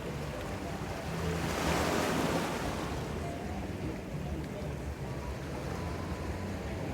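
Ocean surf washing ashore, one wave swelling up and breaking loudest about two seconds in, then hissing back down, with a low wind rumble on the microphone.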